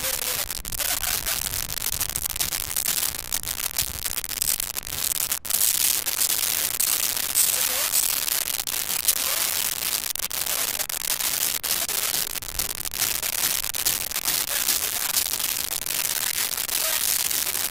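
Steady crackling hiss, dense with small clicks and strongest in the high range, with faint voices underneath.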